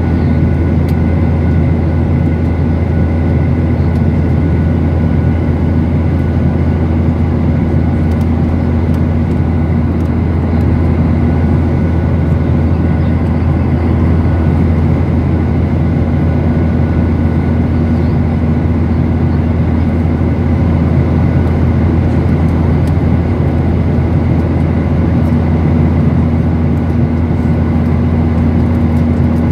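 Steady cabin noise inside a Boeing 737-900ER in flight: its CFM56-7B turbofan engines and the airflow make a loud, even low rumble with a few faint steady tones above it.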